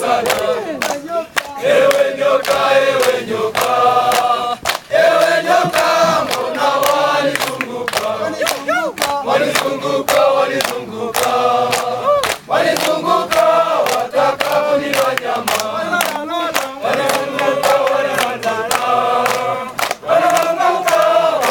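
A large group of men singing a song together in Swahili, with hand clapping along throughout.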